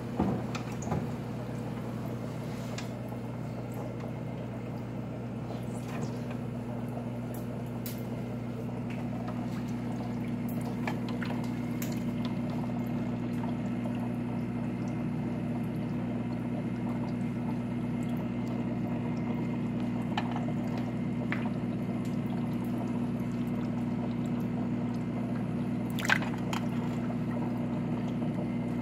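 Aquarium water trickling over a steady low electrical hum from the tank equipment, with a few brief knocks and splashes as a hand net works through the water. The sharpest are right at the start and near the end.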